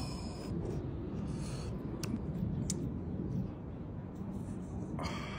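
Soft, sticky handling sounds and a couple of faint clicks as chamoy-coated fried pieces are pushed onto a wooden skewer, over a steady low rumble.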